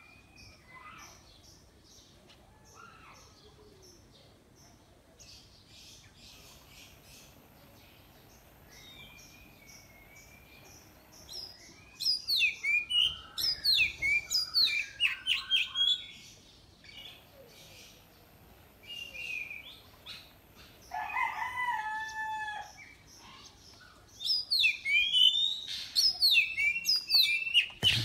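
Oriental magpie-robin singing in its cage. For the first several seconds there are only faint chirps. Then come loud bursts of fast, varied phrases of sweeping rising and falling notes, broken by a pause and a lower, drawn-out call about three-quarters of the way through.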